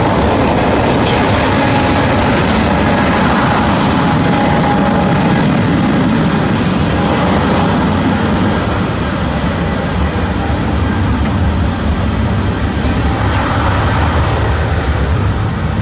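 Boeing 777-200ER jet airliner's engines at takeoff power, a loud steady rush of noise with a faint whine in the first half.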